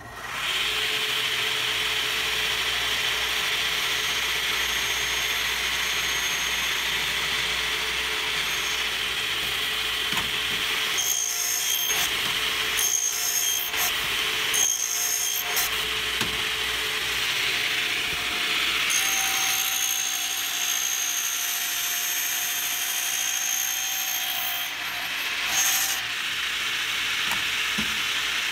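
Automatic miter saw running and cutting PVC pipe, with a steady hiss of blade and cutting noise. A few short bursts of noise break in around the middle and again near the end, as the pneumatic clamps work.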